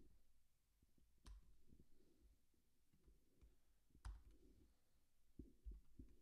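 Near silence with a few faint, sharp clicks at the computer, a second or more apart, the loudest about four seconds in.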